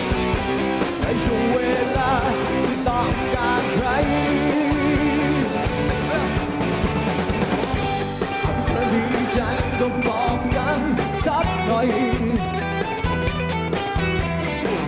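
Live rock band playing: electric guitars and a drum kit, with a voice singing over them. The drumming gets busier from about halfway through.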